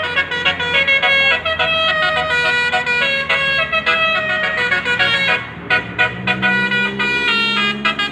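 Bus 'telolet basuri' multi-tone air horn playing a fast tooting melody, several notes sounding at once and changing pitch every fraction of a second, over a low engine hum.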